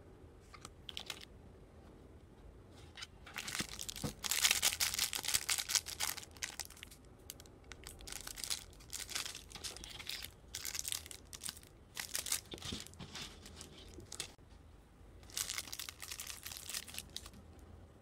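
Clear plastic wrapping and bagged accessories crinkling and rustling as they are handled and lifted out of a box, in irregular bursts with short pauses, loudest about four to six seconds in.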